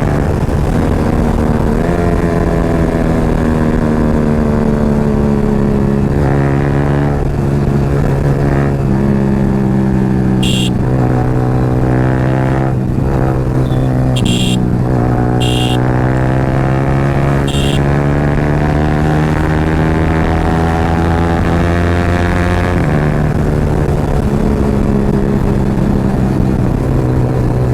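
Yamaha R15's single-cylinder engine running loud through an aftermarket Akrapovic exhaust while riding, its pitch sliding down and up with throttle and jumping at several gear changes. Four short, sharp high sounds stand out over it in the middle stretch.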